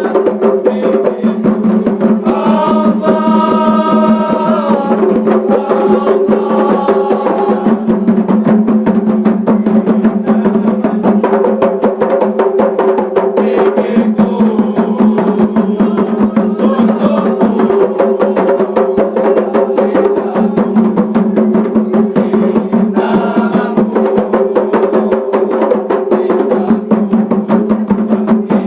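Music: fast, even percussion over a steady held drone, with singing voices coming in a couple of seconds in and again near the end.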